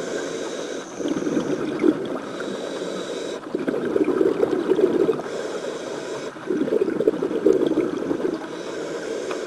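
Scuba diver breathing through a regulator underwater: three bubbling bursts of exhaled air, each about two seconds long, alternating with the regulator's faint hiss on the inhale, in a steady rhythm of about one breath every three seconds.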